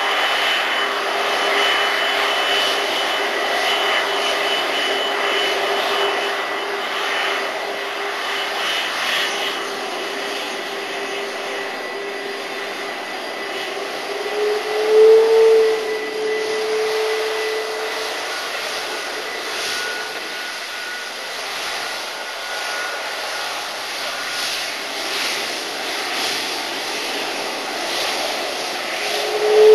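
Twin-jet airliner (Airbus A330-243, Rolls-Royce Trent 700 turbofans) taxiing at low thrust: a steady jet whine with a few held tones. The engine note rises and swells briefly about halfway through, and again at the very end.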